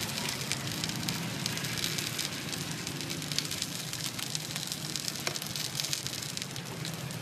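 Khmer chive cakes (nom kou chhay) frying in a wide pan of oil: a steady sizzle with dense fine crackling, and a single sharp tick about five seconds in.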